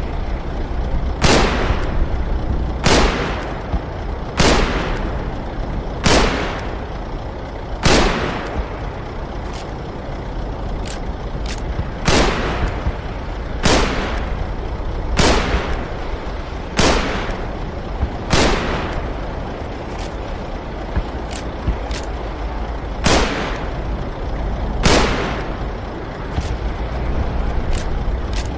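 Type 39 rifle firing single shots, about one every one and a half seconds, each with a short echoing tail, with fainter clicks in some of the gaps, over a steady low rumble.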